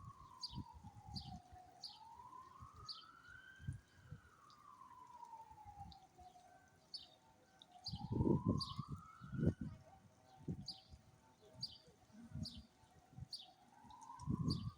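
A siren wails in slow rises and falls of about two seconds each, fades about nine and a half seconds in and starts again near the end. Over it a small bird chirps repeatedly, about twice a second, and irregular low thumps, loudest about eight seconds in, break through.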